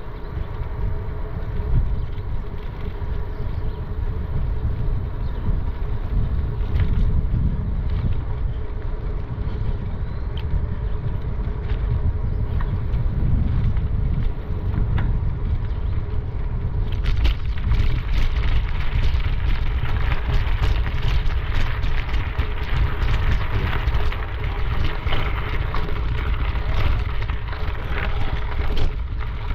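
Wind rumbling on the microphone of a camera carried along a trail. From about halfway through, a hiss with many small crackles joins it, likely the stone trail surface crunching.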